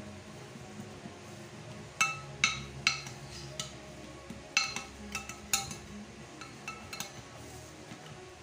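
Metal spoon clinking against a ceramic baking dish: a series of sharp, ringing clinks, bunched between about two and seven seconds in.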